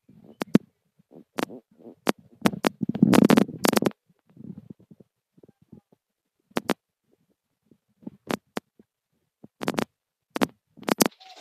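Handling noise on a phone's microphone: irregular sharp clicks and knocks with low, muffled rubbing, thickest about two to four seconds in, then scattered clicks.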